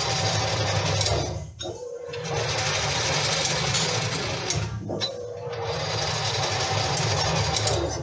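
Belt-driven metal lathe running, spinning a large metal disc: a steady mechanical whir with a low rumble, dipping briefly twice.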